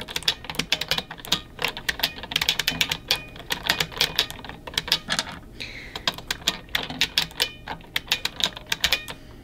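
Mechanical keyboard keys clacking in quick, irregular runs of typing, with short pauses between runs.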